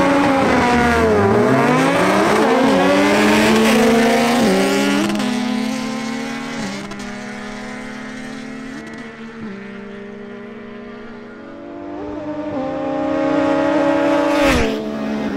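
Two sport motorcycles, a Yamaha MT-09 three-cylinder and a Kawasaki Z900 inline-four, launching hard off a drag-strip start line, engines revving up and dropping briefly at each upshift as they accelerate away. The engine sound fades as they run down the quarter mile, then grows louder again near the end as they near the finish.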